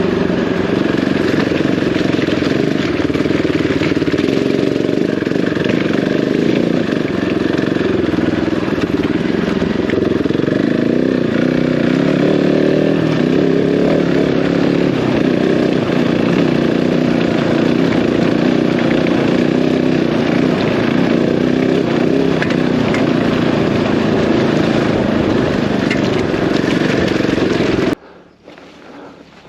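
A single-cylinder enduro motorcycle riding under power on a rough off-road lane, its engine loud and steady with a noisy haze over it. Near the end the sound drops off abruptly to a much quieter level.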